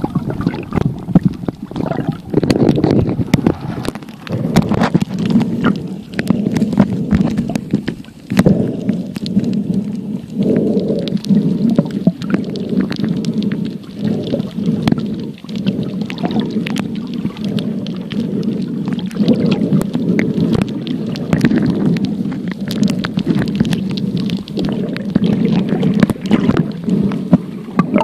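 Muffled, rumbling water noise that swells and fades every second or two, with gurgling and frequent small clicks, as picked up by a phone filming underwater.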